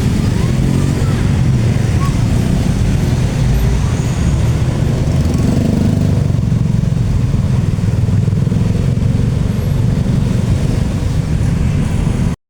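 Loud, steady low rumble of passing vehicles, which cuts off suddenly near the end.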